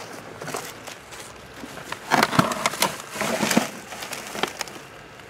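Plastic packaging and bags rustling and crinkling in irregular bursts as piled goods are handled and shifted, loudest from about two to four seconds in.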